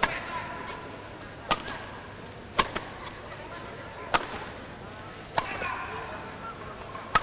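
Badminton rally: a shuttlecock struck back and forth by rackets, six sharp hits about one to two seconds apart.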